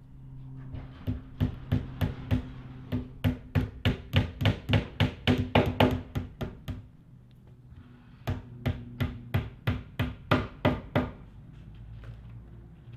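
Hammer tapping small nails into the thin fiberboard back panel of an IKEA Brimnes wardrobe: two runs of quick, even strikes, about four a second, with a short pause between them.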